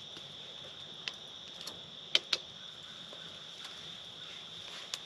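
Steady high trilling of crickets and other night insects, with a few sharp pops from the crackling campfire, two of them close together about two seconds in.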